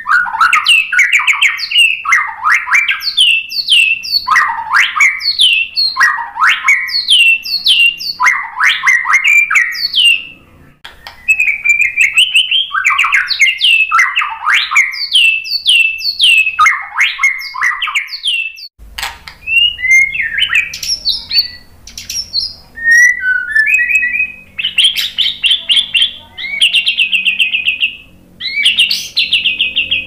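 White-rumped shama singing loudly. For the first half it repeats fast rattling phrases, about one a second, with a short break about ten seconds in. Later it switches to varied whistled notes and quick trills, with a faint low hum underneath.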